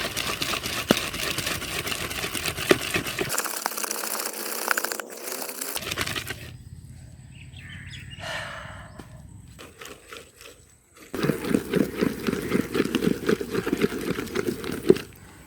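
Soaked urad dal being ground into batter by hand: repeated scraping and knocking strokes, coming in separate stretches with a quieter gap in the middle and a louder run of quick strokes near the end.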